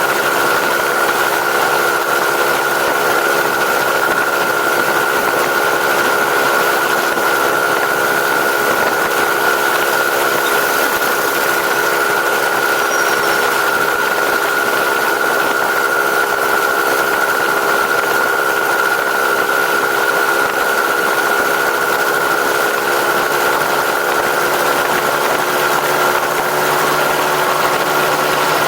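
Engine on its stock exhaust idling steadily at an unchanging speed, with a steady high whine over the running.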